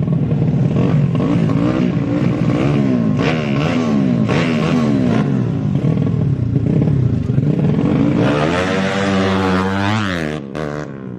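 Small tuned four-stroke motorcycle engines revving hard, the pitch rising and falling again and again through the gears, then one long rising rev that cuts off abruptly about ten seconds in.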